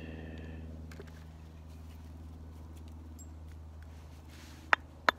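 A bare steel hatchet head worked by hand against a fatwood stick: faint scraping and light clicks, then two sharp knocks of wood against the steel near the end, over a steady low hum.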